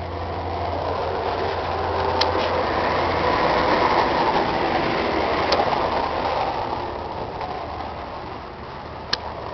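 Ford 6610 tractor's four-cylinder diesel engine running steadily. Its low hum grows louder toward the middle and eases off near the end, with a few sharp clicks.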